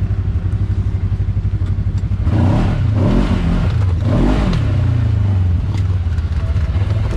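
Segway Fugleman UTV's twin-cylinder engine running under way, revving up and easing off twice, about two and a half and four seconds in, with a rush of noise during the revs.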